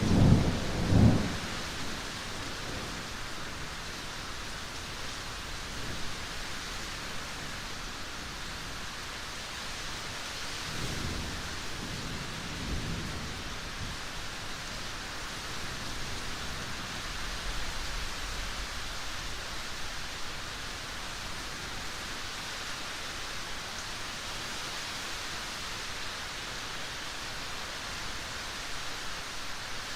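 Steady rain hissing, with a loud low thunder rumble at the start and fainter rumbles about eleven seconds in.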